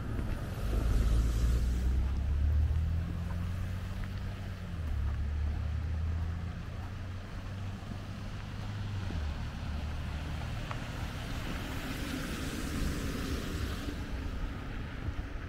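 Low engine hum of a motor vehicle, loudest in the first few seconds and shifting pitch in steps before fading out about ten seconds in. A rushing noise swells near the end.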